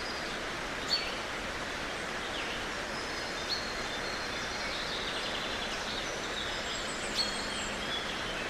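Forest birds chirping over a steady outdoor hiss: single sharp high calls about a second in, at three and a half seconds and near the end, and a quick trill in the middle.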